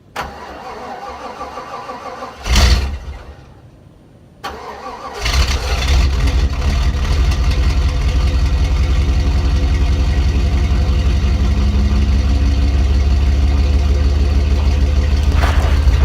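A vehicle engine being cranked and started: a loud brief burst about two and a half seconds in, then it catches about five seconds in and runs steadily at idle.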